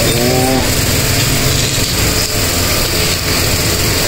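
A small engine running steadily, with a dense low rumble, and a person's voice briefly at the start.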